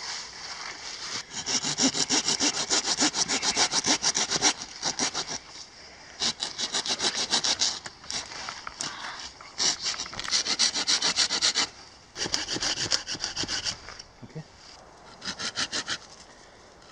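Folding pruning saw, a Bahco Laplander, cutting through a conifer log with fast back-and-forth rasping strokes. The strokes come in several bouts of one to three seconds with short pauses between, and sawdust falls as the blade cuts.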